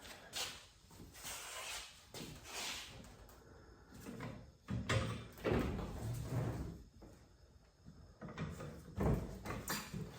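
Irregular knocks, scrapes and a few dull thumps as a jack is lowered and moved out from under a freshly hung car door.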